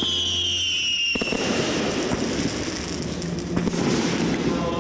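Aerial fireworks: a high whistle sliding down in pitch for about a second, then dense crackling.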